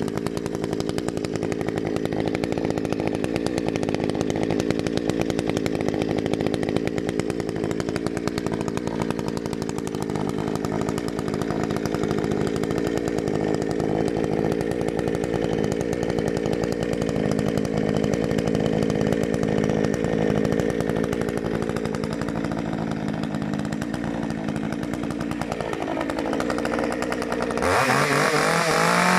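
Efco MTH 5600 two-stroke chainsaw idling steadily. Near the end the engine gets louder and its pitch rises and falls as the throttle is blipped.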